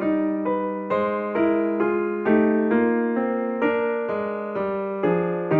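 Background music: an electric piano playing a gentle melody of struck notes, a few a second, over a held low note.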